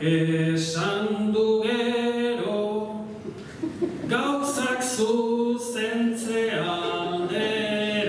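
A man singing an improvised Basque bertso unaccompanied, holding each note steady and stepping from one pitch to the next.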